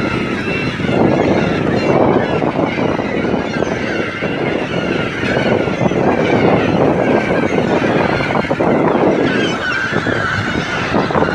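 A large flock of gulls calling all at once as they dive and feed on the water beside a boat, many harsh overlapping cries over a steady noisy rumble.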